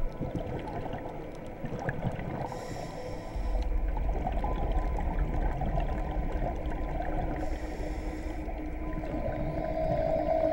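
Scuba diver breathing through a regulator underwater: two rushes of exhaled bubbles about five seconds apart, over a steady muffled crackling and rumble.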